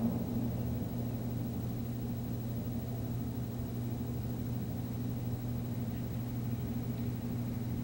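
Steady low hum and rumble of distant city ambience, with no music.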